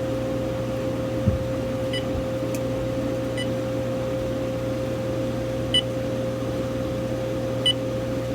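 Uniden EXAI7980 cordless phone's key-press beeps as its buttons are tested: four short high beeps spread over several seconds, with a click about a second in. A steady hum sits underneath.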